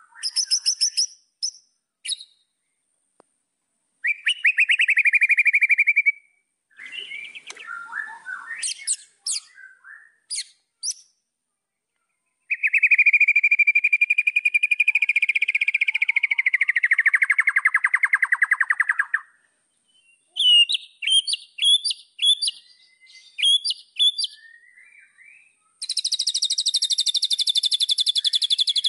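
White-rumped shama (murai batu) singing a varied song in separate phrases: short high whistled notes, a rattling phrase, then a long rattle of several seconds that falls in pitch, quick high notes, and a fast high trill near the end.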